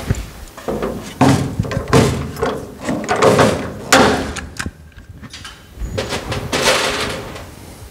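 Hand pop-rivet tool being squeezed to set rivets through an aluminum floor sheet: a series of sharp clacks and snaps over several seconds, with a short pause just after the middle.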